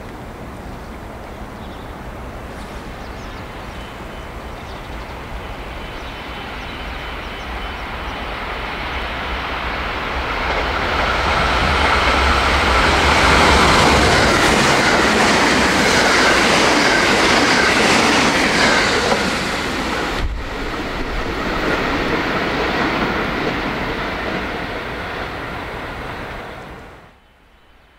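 JR West 287-series electric express train, running out of service, approaching and passing through the station at speed. A rush of wheels on rail with clickety-clack over the rail joints builds to its loudest about halfway through. It then tails off and cuts off suddenly near the end.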